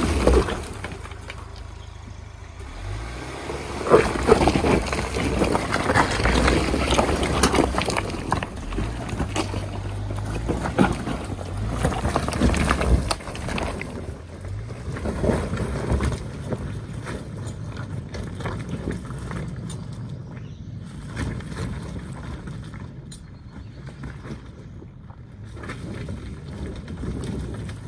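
A 2019 Ford Ranger's 2.3-litre EcoBoost turbo four-cylinder pulls under load up a loose-rock hill, its engine note stepping up and down. The tyres crunch and slip over the rocks, with frequent clatters of stones kicked loose. The sound grows fainter in the second half as the truck climbs away.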